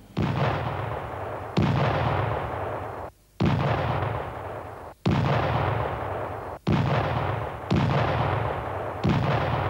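A rapid series of explosions, seven blasts one after another, each starting suddenly and trailing off in a low rumble; several are cut short before the next one hits.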